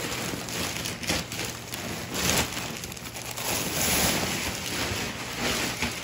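Paper filter bag of a soot vacuum rustling and crinkling as it is pulled out of the drum and handled, with a couple of sharper knocks about one and two seconds in.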